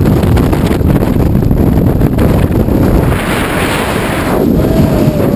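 Loud, steady wind rushing and buffeting across the camera microphone during a skydive.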